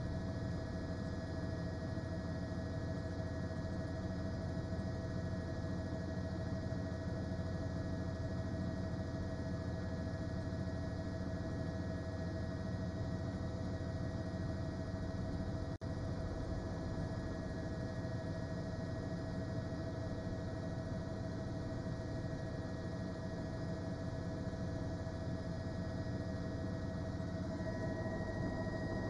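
Steady hum with a few held whining tones, the cabin noise of a news helicopter picked up by the reporter's open microphone. The sound drops out briefly about halfway through.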